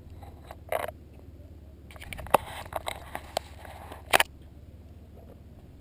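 Handling noise on a GoPro action camera: scattered clicks, taps and rubbing of a hand on the camera housing, with sharp knocks a little after two seconds and about four seconds in.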